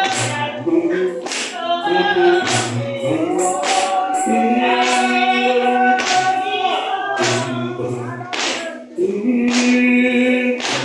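Congregation singing a spiritual together, many voices on long held notes, with sharp percussive beats about once a second.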